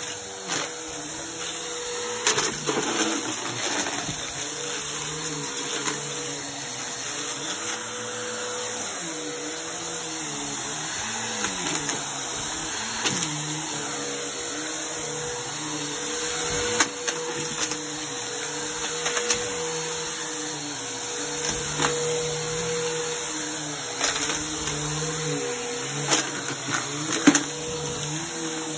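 Bissell PowerForce upright vacuum cleaner running steadily on carpet, with a scattering of sharp clicks and rattles as small hard objects such as coins are sucked up.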